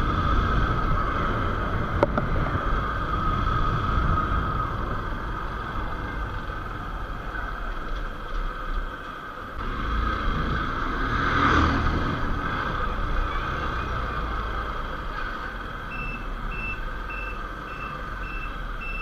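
Riding a motorcycle: the bike's engine and wind rush on the on-bike microphone run steadily. Another vehicle passes with a brief swell in the noise near the middle. About sixteen seconds in, a high electronic beeping starts, roughly two or three beeps a second.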